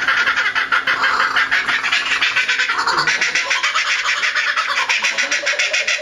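Laughing kookaburra calling: a long, unbroken run of rapid staccato notes, about nine a second.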